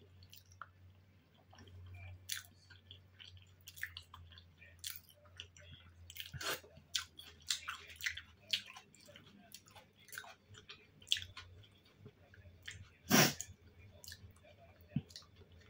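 Close-miked chewing of soft boiled dumplings and bread, with irregular wet mouth clicks and smacks, and one louder mouth sound a couple of seconds before the end.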